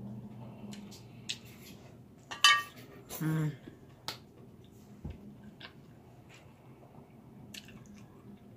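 Wooden spoon clicking and scraping in a glass food dish, then the dish set down on a table, with a loud ringing knock about two and a half seconds in and scattered light clicks afterwards. There is a short vocal sound just after the knock.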